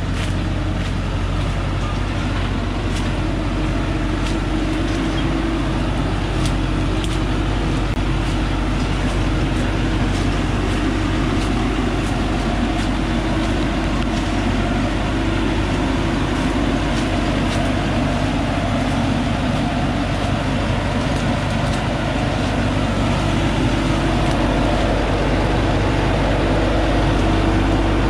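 Thaco Forland truck's diesel engine running steadily under load as the truck, loaded with acacia wood, climbs a rough stone track, a continuous drone that grows a little louder near the end. Scattered sharp clicks can be heard over it.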